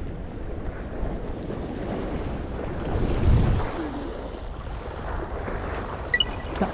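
Wind buffeting the microphone over the wash of the sea, with a stronger gust about three seconds in. Two brief sharp clicks near the end.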